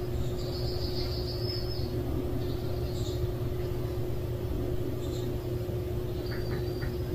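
Steady low outdoor rumble with a constant hum, like distant traffic, with a few faint high chirps scattered through it.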